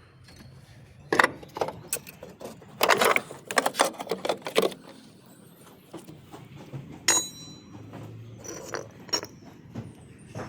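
Metal hand tools and parts clinking and clattering during engine-mount work: a run of sharp clanks in the first half, then a single ringing metallic clink about seven seconds in.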